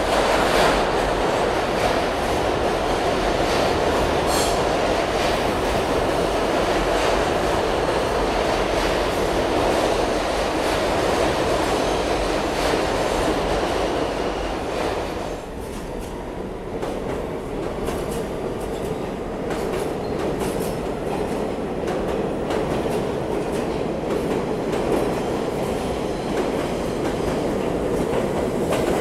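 New York City subway train running through an underground station, with wheels clicking over rail joints and some squeal. The noise eases about halfway through, then builds again.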